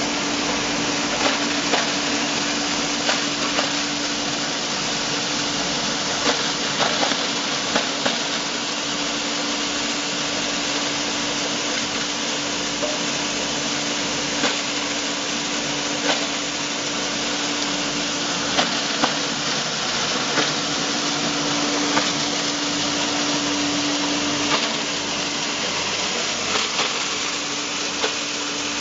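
Plastic recycling grinder running with a steady motor hum while its blades shred used plastic, with irregular sharp cracks as pieces are chopped.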